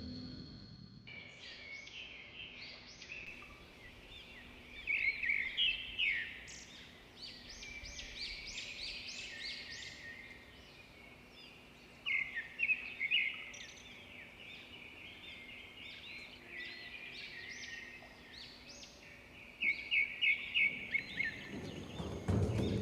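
Birds singing and chirping: runs of rapid high notes about five, twelve and twenty seconds in, with softer chirps between.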